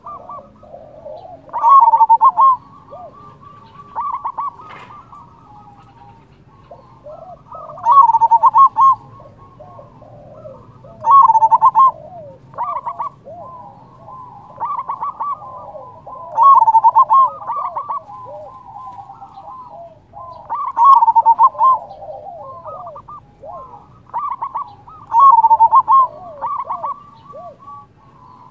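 Zebra dove (perkutut) singing: about six loud phrases of quick staccato coos, one every four to five seconds, with softer cooing notes between them.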